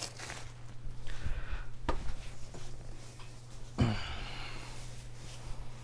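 Handling and movement noise: soft rustling with two short knocks, about two and four seconds in, as a person moves about and sits down at a desk, over a steady low hum.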